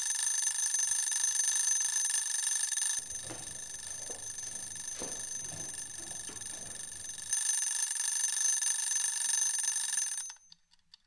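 Bomb-shaped wind-up kitchen timer going off, its bell ringing continuously at zero. The ringing drops quieter for a few seconds in the middle, with a few soft knocks underneath, then comes back loud and cuts off suddenly near the end.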